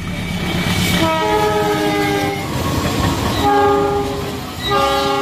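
Diesel locomotive's multi-tone air horn sounding three blasts over the rumble of a running train. The first blast is long and starts about a second in, its pitch sliding down slightly. Two shorter blasts follow near the end.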